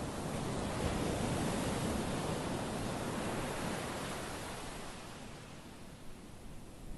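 Small sea waves breaking and washing up onto a sandy beach: a surge of surf that swells about a second in, then ebbs away as the water draws back.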